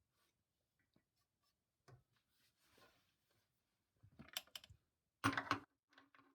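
Small scattered clicks and light knocks of hand-tool and parts handling while the motor is being unbolted, with a brief louder clatter about five seconds in.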